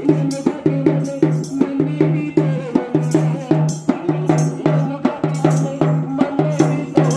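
Rhythmic music: a bass drum beaten with a stick at a quick, steady beat of about three strokes a second, over a tune with a repeating bass line.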